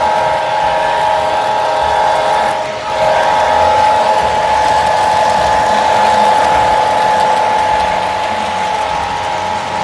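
Model diesel locomotive running along the track close by, a steady mechanical whine of its motor and gears over the wheels rattling on the rails, with a brief dip about three seconds in.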